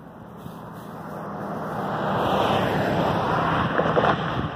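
A road vehicle passing on the highway, its tyre and engine noise rising to a peak a couple of seconds in and easing off near the end.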